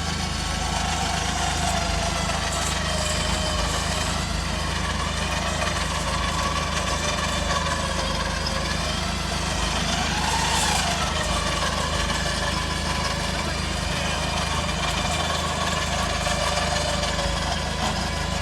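Off-road 4x4's engine running steadily while the vehicle works slowly through forest terrain, with a higher whine that rises and falls briefly about ten seconds in.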